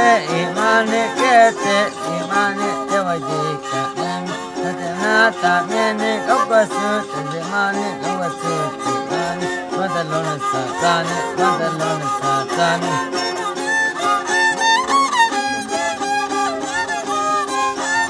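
Instrumental string music: a violin playing a gliding melody, with plucked strings underneath.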